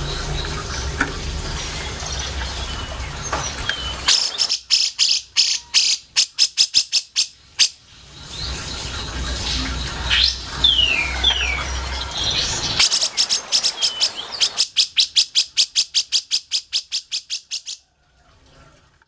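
Cucak jenggot (grey-cheeked bulbul) singing: two bouts of rapid chattering trills of about five to six notes a second, with scattered chirps and whistled notes between them over a low hum.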